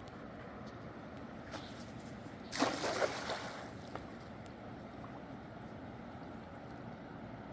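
Steady rush of water, with a brief splash of water about two and a half seconds in.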